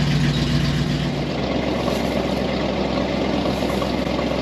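Heavy vehicle engine running steadily; about a second in its smooth hum turns rougher and noisier, then settles back toward a steady hum near the end.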